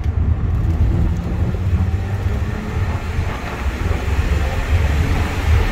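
A BMW 325ci's straight-six engine and road noise heard from inside the cabin while driving, a steady low rumble.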